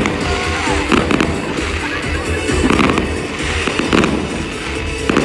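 Fireworks bursting overhead in a series of sharp bangs, roughly one a second, over show music played loud from speakers.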